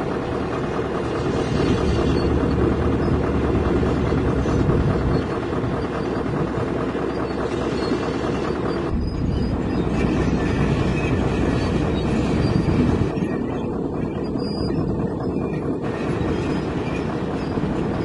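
Heavy diesel earthmoving machines working: a hydraulic excavator and a crawler bulldozer, with a steady, deep engine rumble. The sound changes about nine seconds in and again between about thirteen and sixteen seconds.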